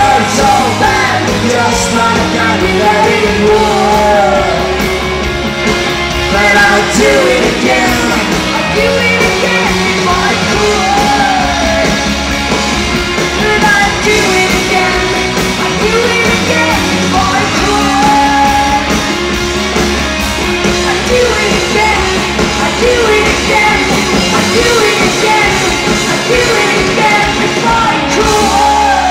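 Live rock band playing loud: electric guitars, bass and drums, with a female lead singer's vocals over them, heard from among the audience.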